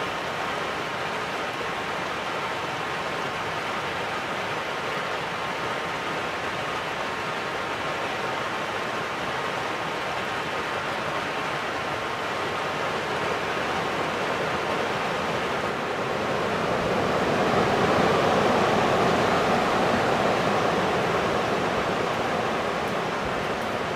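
Steady rush of fast-flowing river water, swelling louder for a few seconds about three-quarters of the way through.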